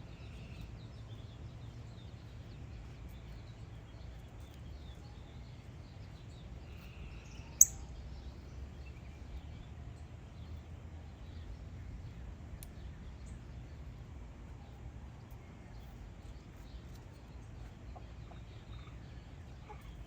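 Outdoor ambience with a steady low rumble of wind and faint bird calls. One sharp, very brief high chip or click stands out, much louder than the rest, about seven and a half seconds in.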